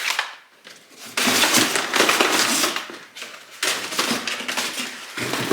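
Packing material crinkling and rustling as turbo kit parts are unwrapped by hand, in two long stretches after a brief lull.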